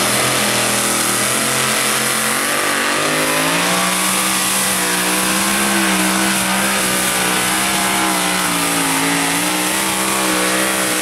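Modified two-wheel-drive pulling truck's engine at full throttle under heavy load, dragging a weight sled. Loud and steady, its pitch climbs about three and a half seconds in and holds high, sagging briefly near the end.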